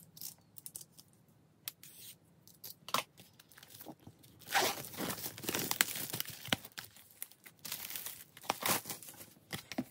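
Plastic shrink wrap on a CD album being opened: a few light clicks and scratches at first, then from about four and a half seconds in a dense, crackling stretch of crinkling and tearing as the wrap is peeled off.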